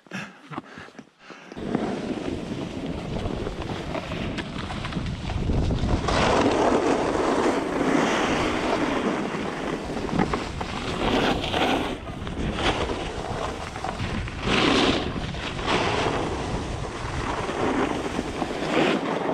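Wind rushing over an action camera's microphone and a snowboard hissing and scraping over snow while riding downhill. It starts about a second and a half in and swells louder several times.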